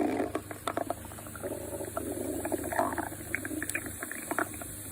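A hungry stomach growling: an uneven gurgling with scattered crackles and bubbling pops.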